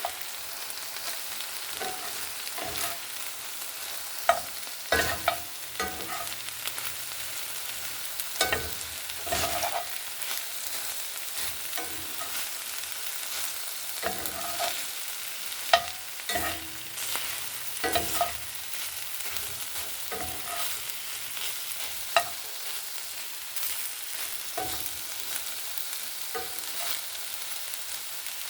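A spoon stirring ground turkey chili in a pot, with irregular scrapes and knocks against the pot over a steady sizzle of the cooking chili.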